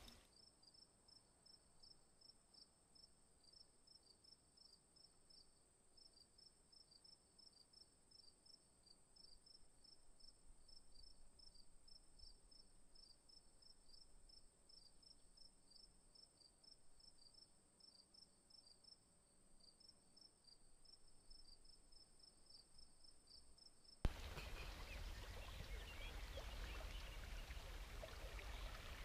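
Faint chirping of crickets in a fast, regular rhythm over near silence. About 24 s in, this cuts to a louder, steady outdoor rushing noise.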